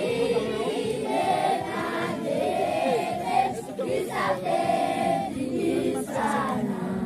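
A group of children singing together as a choir.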